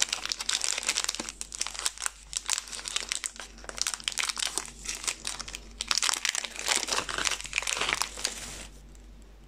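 Shiny chocolate-bar wrapper crinkling and crackling as it is opened and peeled off the bar by hand, a dense run of crackles that stops near the end.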